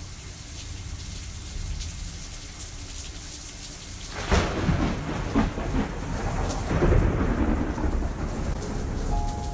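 Steady rain falling. About four seconds in, thunder cracks suddenly and then rolls on in a long low rumble over the rain.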